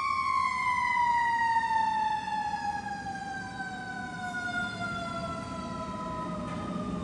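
Fire engine's siren winding down, one long tone whose pitch falls slowly and steadily. It is loudest in the first two seconds and then fades as the engine moves away.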